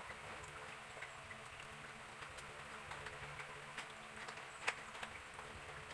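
Bananas being peeled by hand against a knife blade: faint scattered clicks and snaps of peel tearing away, with one sharper snap about four and a half seconds in.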